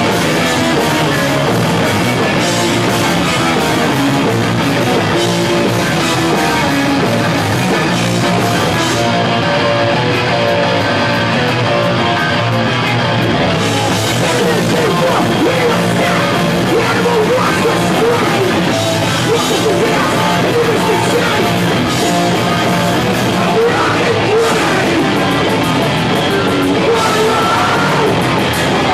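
Hardcore punk band playing live: distorted guitars, bass and pounding drums with vocals, at a steady loud level. The cymbals drop out for about four seconds near the middle, then come back in.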